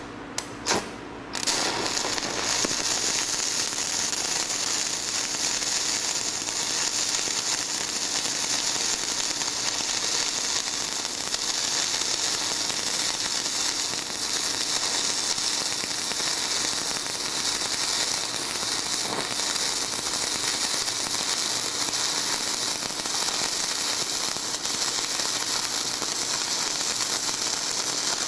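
Shielded metal arc (stick) welding: a few sharp pops in the first second, then the electrode's arc crackling steadily and evenly.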